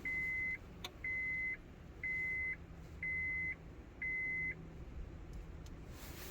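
Five steady, high-pitched electronic beeps, one a second, each about half a second long, which then stop.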